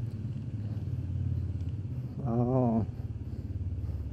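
Honda Winner X motorcycle's single-cylinder engine running with a steady low chug at low speed. About two seconds in, the rider makes a brief wavering vocal sound over it.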